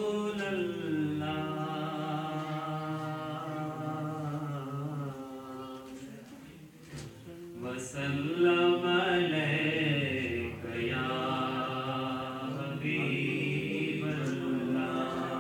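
A man singing a naat unaccompanied, in long held, wavering melodic phrases. There is a short pause for breath about seven seconds in before the next phrase.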